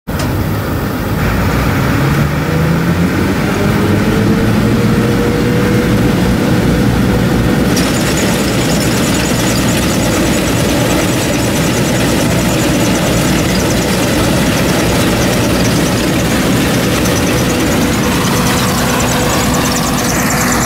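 Bizon Rekord combine harvester's diesel engine running, revving up over a few seconds, starting about a second in, then holding a steady high speed. A fine, fast high-pitched rattle from the machinery joins about eight seconds in.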